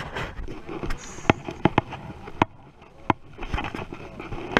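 Handling noise on the camera: sharp, irregular knocks and scraping as a fishing rod's grip and the angler's hands bump and rub against the chest-mounted GoPro while he fights a fish.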